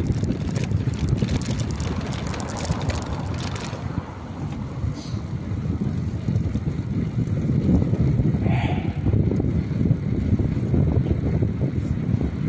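Wheels rolling along a street with rumble and wind on the microphone, rattling over cobblestones for the first few seconds, then running smoother on asphalt.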